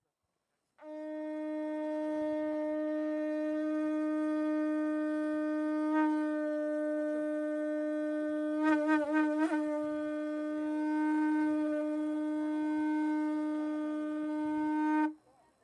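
Conch shell trumpet blown in one long steady note, held for about fourteen seconds. The note wavers briefly about two-thirds of the way through, then cuts off sharply near the end.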